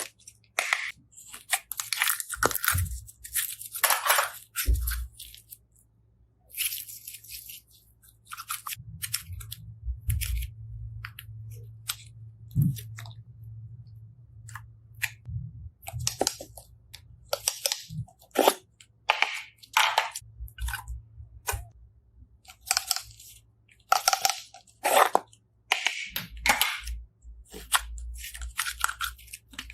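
Slime being squeezed and pressed by hand, giving short, irregular crunching and crackling sounds with brief quiet gaps between them.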